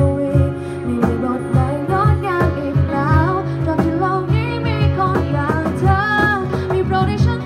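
Live acoustic pop song: a woman singing into a microphone over acoustic guitar and a steady cajon beat.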